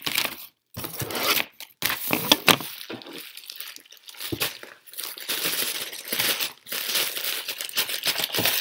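Plastic bubble mailer being torn open by hand, its padded plastic ripping and crinkling in a run of irregular bursts.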